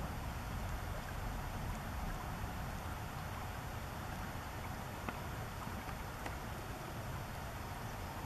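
Steady low outdoor background rumble, with a few faint ticks about five to six seconds in; no calls from the eagles.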